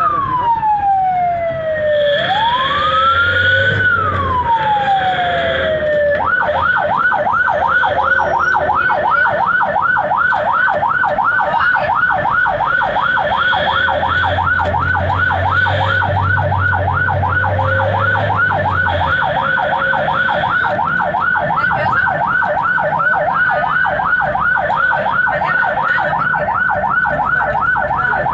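Ambulance siren heard from inside the cab: a slow wail falling, rising and falling again, then switching about six seconds in to a fast yelp of several quick sweeps a second, which holds steady.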